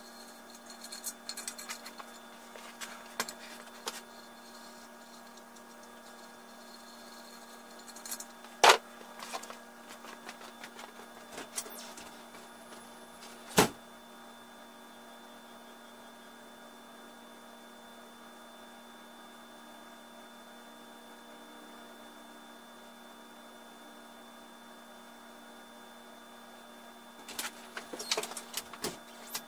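Steady electrical hum with scattered clicks and handling noises, two sharp knocks about a third and halfway in, and a short burst of rattling near the end.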